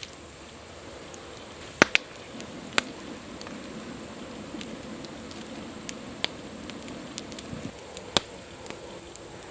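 Wood campfire crackling: irregular sharp pops over a steady low hiss, the loudest pops about two seconds in and near the end.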